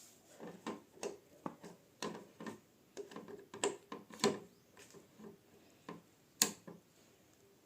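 A run of irregular light clicks and knocks, with one sharp click about six and a half seconds in: a plug and cable being handled and pushed into a socket.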